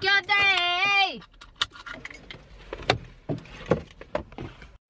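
A single voice singing a held phrase that falls away and stops about a second in. It is followed by a few seconds of scattered sharp clicks, knocks and jingles from handling inside a car.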